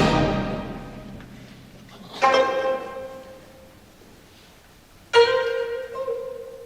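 Background music: a full orchestral passage fades out, then two single plucked notes, about three seconds apart, each ringing out and dying away.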